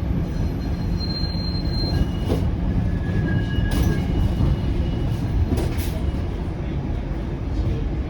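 Low-floor Flexity Outlook streetcar rolling along, with a steady low rumble and several brief, faint high-pitched wheel squeals on the rails.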